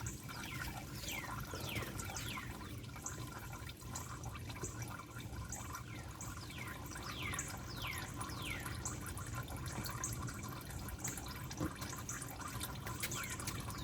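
Engine oil draining from a 2000 Porsche Boxster, trickling and dripping into a drain pan, with a series of short, high, falling chirps throughout.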